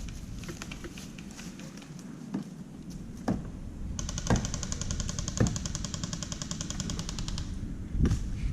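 Airsoft gun firing a fast automatic burst of about three and a half seconds, starting about four seconds in, with single sharp cracks from shots or BB hits before, during and after it.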